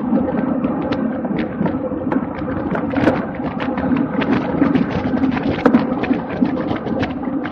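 Wind rushing over the microphone and road noise from a racing bicycle moving at speed, with many irregular sharp ticks throughout.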